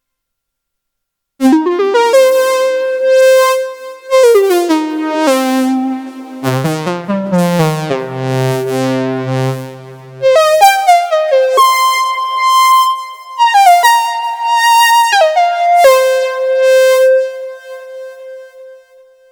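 Elektron Analog Four MK2 analog synthesizer playing a patch. It starts about a second and a half in with a melody of notes that glide and step in pitch while the tone sweeps brighter and darker. A bass line joins for a few seconds in the middle, and the passage ends on a held note that fades out.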